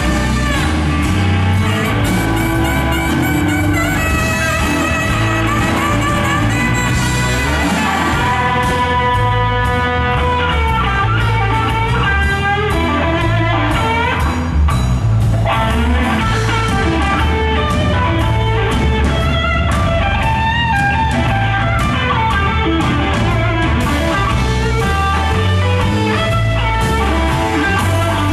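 Live blues band playing: electric guitar over a steady drum-kit beat.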